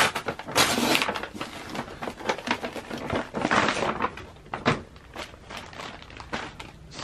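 Brown paper parcel with a plastic outer wrap being torn open and handled, a crackly rustling and tearing of paper and plastic. It comes in bursts, loudest in the first second and again about three and a half seconds in, with scattered crinkles and clicks between.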